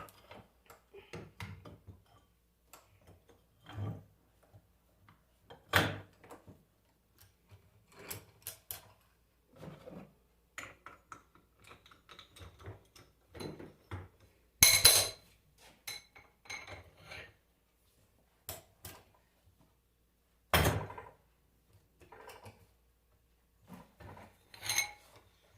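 Irregular metallic clinks and knocks as alternator parts and hand tools are handled on a workbench during disassembly, with a few louder knocks among them.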